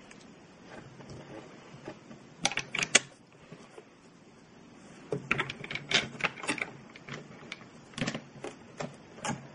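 Plastic Lego bricks clicking and clattering as they are handled and pressed together, in several short bunches of sharp clicks.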